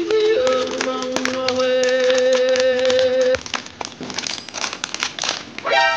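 Music with long held notes for the first half, stopping abruptly; the crinkle of a clear plastic packet being handled and unwrapped goes on under it and is heard alone afterwards as quick crackling.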